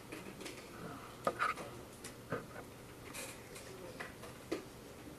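A few faint, irregularly spaced clicks and taps over low room noise.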